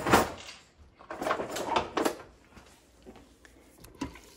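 A kitchen drawer being opened and shut while a utensil is fetched: a scraping burst at the start and several shorter ones a second or so later, then a couple of light taps near the end as the spoon touches the stainless steel inner pot.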